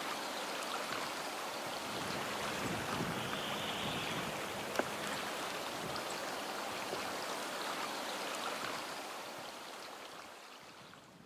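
Steady sound of running water in a forest stream, fading out near the end, with one sharp click about five seconds in.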